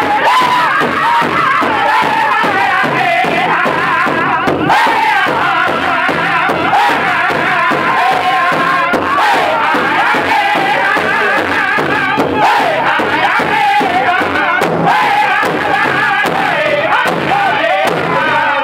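Powwow drum group singing an intertribal song together in high voices while beating a large hide powwow drum in unison.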